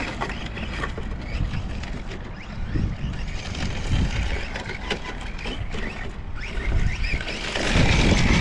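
Electric RC rally car driving over rough dirt and gravel. Its motor whine is faint at first and grows louder, rising in pitch near the end, over a steady low rumble and scattered small ticks.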